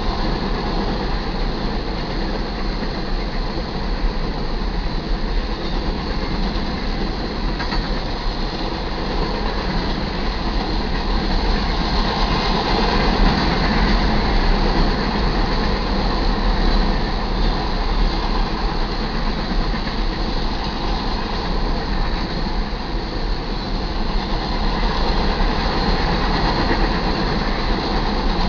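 Two long freight trains of loaded hopper cars rolling past each other on adjacent tracks: a steady rumble and rattle of steel wheels on rail.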